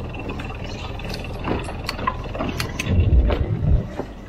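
A sailboat's genoa being hauled down after its halyard is released: scattered clicks and rattles of deck hardware and line, with a few louder low thumps of the sail about three seconds in, over a steady rumble of wind and water.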